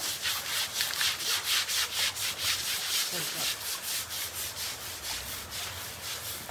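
Rhythmic scrubbing strokes, about three a second, of an elephant's hide being scrubbed during its bath.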